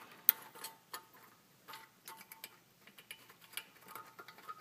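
Irregular small metallic clicks and taps from a brake pad retaining spring clip being worked onto the pad pin of a rear brake caliper by hand. The sharpest click comes a fraction of a second in.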